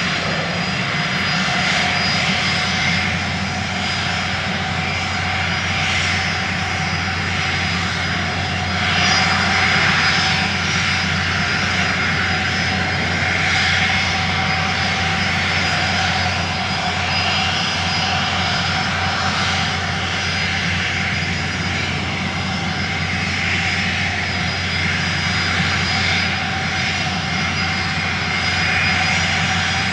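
Airplane engine running steadily, a continuous drone with slight swells in loudness.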